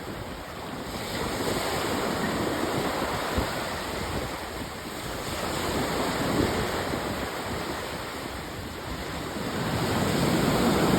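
Sea waves washing onto a sandy beach, the surf swelling and easing every few seconds, with wind buffeting the microphone.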